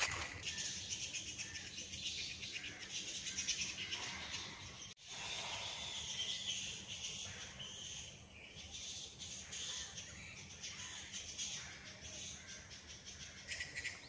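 Dense chorus of high chirping and squeaking from birds and other wildlife in tropical mangrove woodland, with a brief drop-out about five seconds in.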